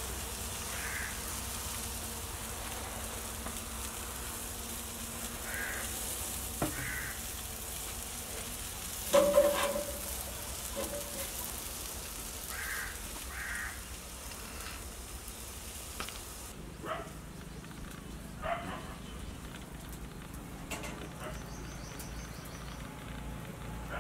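Beef tongue skewers sizzling over a charcoal grill, a steady hiss that drops lower about two-thirds through. Short bird calls come now and then, the loudest about nine seconds in.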